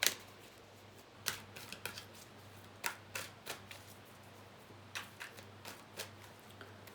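Tarot cards being shuffled and drawn by hand: a scatter of short, sharp card flicks and taps, over a steady low hum.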